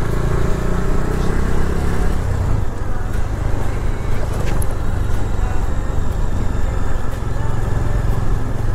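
Bajaj Dominar 400's single-cylinder engine running steadily as the motorcycle rides along, under a steady rush of wind and road noise.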